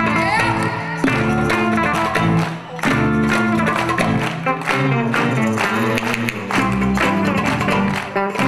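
Live band playing Turkish pop: oud, bağlama and guitars plucking over bass guitar and violin, with a steady beat of regular sharp strokes.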